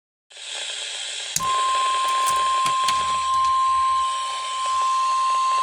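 Weather radio hissing with static, then about a second and a half in the steady single-pitch warning alarm tone starts and holds. This is the alert tone that comes before a broadcast warning. A few brief clicks sound over the hiss early in the tone.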